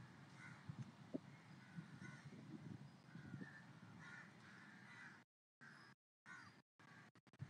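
Near silence: faint low background noise with a few faint short calls. Near the end the sound cuts out completely several times.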